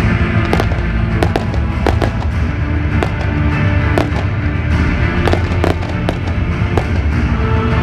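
Fireworks display: a rapid scatter of bangs and crackles over a continuous low rumble, with music playing alongside.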